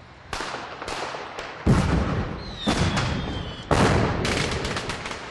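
A string of sharp bangs, about ten in all, each fading quickly, the loudest about two seconds in and several in quick succession near the end. A thin falling whistle is heard about halfway through.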